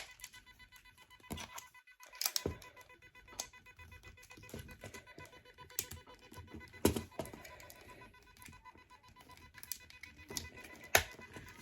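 Scattered plastic clicks and taps from a battery pack being plugged into a toy RC stunt car and the car being handled, over a faint steady tone.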